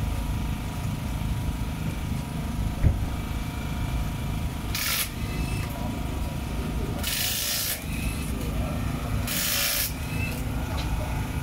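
Three short bursts of pressurized hiss, the second the longest, from work at a rally car's wheel in a service area, over a steady low rumble; a single sharp knock comes about three seconds in.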